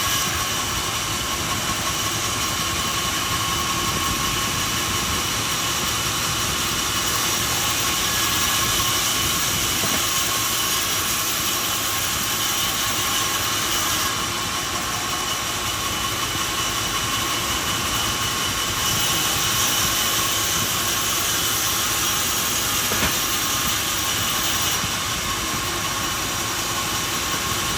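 Sawmill machinery running steadily: a constant hiss with a steady whine, shifting slightly in tone every several seconds.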